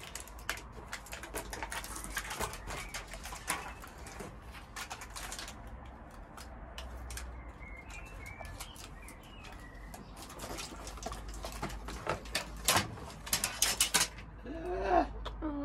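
A knife scoring foil-faced Dodo Mat sound-deadening sheet, which clicks and crackles as it is cut and handled, loudest near the end. Birds call in the background, with a pigeon cooing near the end.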